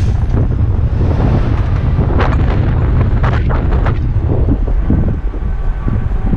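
Strong wind buffeting the microphone in a heavy, steady rumble, with a few sharp knocks about two to three and a half seconds in.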